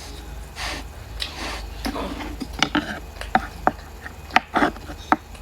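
Close-up eating sounds: soft scraping and chewing, then a run of sharp clicking smacks and taps from the mouth and utensils during a rice meal.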